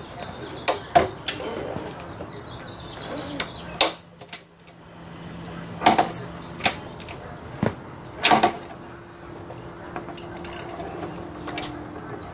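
A series of sharp metallic clunks and clicks from a Victory Empulse TT electric motorcycle's chain drivetrain and foot controls, the loudest a cluster about eight seconds in. A faint steady hum runs under them in the middle and again near the end.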